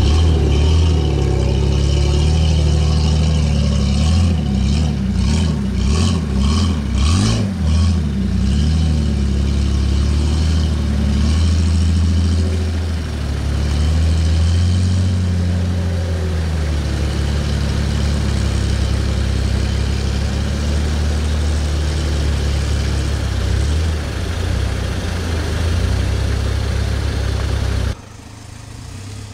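Off-road 4x4 engine running at low revs, with a run of knocks a few seconds in and the revs rising and falling around the middle. The sound drops off suddenly near the end.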